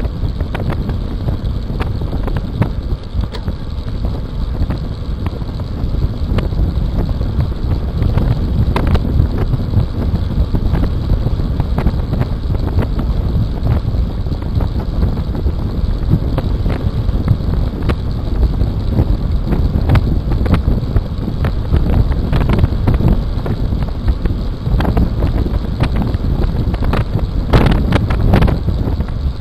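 Wind buffeting the microphone of a racing bicycle's handlebar camera at about 40 to 45 km/h, over tyre noise on a rough chip-seal road. Frequent small knocks and rattles from bumps run through it, with a quick cluster of louder ones near the end.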